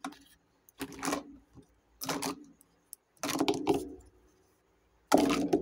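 Miniature plastic toy kitchen pieces clattering and knocking together as they are picked up and handled, in four short bursts about a second apart.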